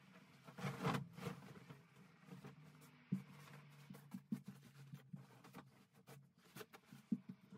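Bedding rustling and swishing as a duvet and quilted bedspread are shaken out and spread over a bed, loudest about a second in. There is a single sharp knock about three seconds in and a few light clicks near the end.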